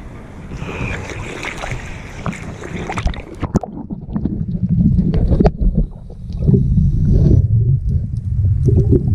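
Water sloshing and splashing around a microphone held at the waterline. About three seconds in, the microphone goes under and the sound turns muffled: a low underwater rumble that swells in uneven surges, with scattered clicks.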